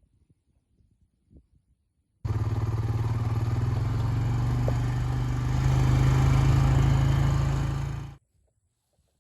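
An engine running steadily for about six seconds, cutting in and out abruptly and getting a little louder in the second half.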